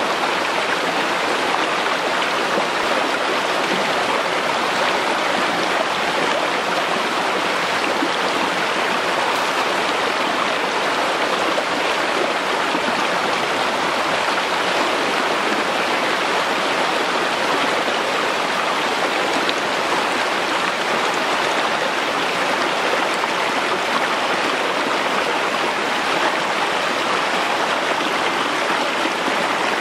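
Shallow rocky stream rushing and splashing over stones, a steady, even water noise.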